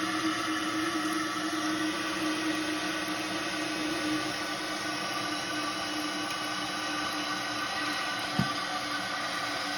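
Toilet fill valve running steadily as it refills a Kohler Devonshire tank after a flush: an even hiss of water with a faint hum. A short click a little past eight seconds in.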